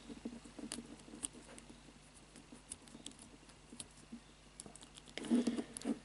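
Faint, scattered small clicks and scrapes from the number wheels of an Abus 3406C combination cable lock being turned by hand and the cable being tugged, as the lock is decoded by feel. A brief louder low sound comes a little past five seconds.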